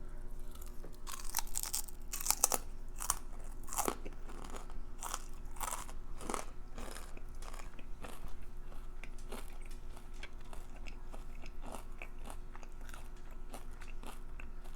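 Close-up crunching and chewing of crispy, air-fried crab cream cheese wontons. The loudest crunches come in a run a second or two in, then the chewing goes on more softly.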